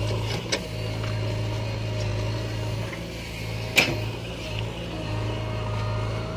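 Diesel engine of earthmoving machinery running steadily at idle, with a short sharp click about half a second in and a louder one just before four seconds in.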